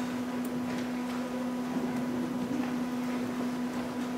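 Steady electrical hum with faint hall room noise, and a few soft footsteps on the stage floor.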